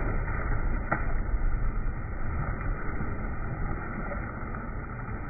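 Pool water splashing, with a loud splash right at the start as someone enters the water, then continued splashing of a swimmer over a steady low rumble. The sound is dull and muffled.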